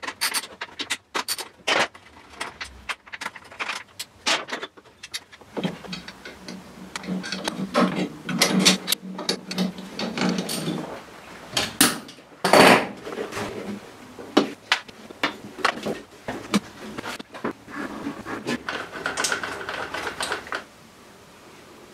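Workshop handling noises: irregular clicks, knocks and clatter of hand tools and hard plastic motorcycle parts (a Suzuki Hayabusa's airbox and fuel tank) being worked on. There is a loud knock about halfway through, and a steady low hum for several seconds before it.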